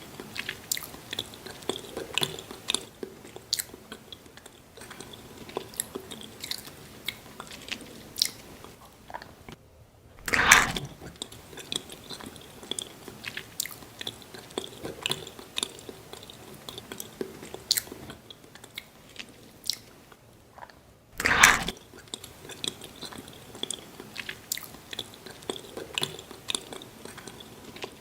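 Close-miked ASMR chewing and biting: steady crackly, crunchy mouth sounds, with two louder, longer crunches about a third and three quarters of the way through.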